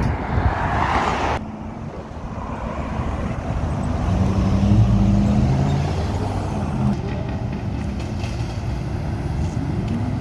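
Car engines accelerating through an intersection over road traffic, loudest about five seconds in, with another engine revving up near the end. The sound changes abruptly just over a second in.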